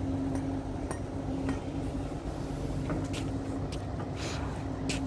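A vehicle engine running steadily, with scattered light clinks and knocks of outdoor setup work.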